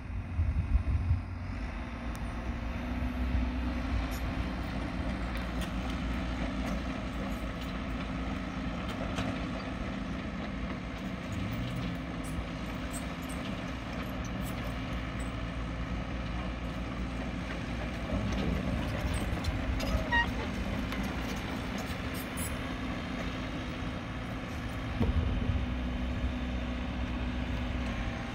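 Caterpillar 312 hydraulic excavator and a dump truck working, their diesel engines running steadily, with the engine note swelling louder about a second in, around twenty seconds and near the end.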